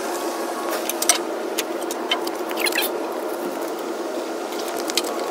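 Scattered small clicks and scrapes of hand tools working on a Jeep's steel front bumper and its plastic trim, over a steady hum.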